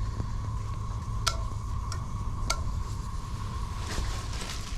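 Steady low wind rumble buffeting the ice-fishing hut, with a faint steady high tone and three sharp ticks in the middle.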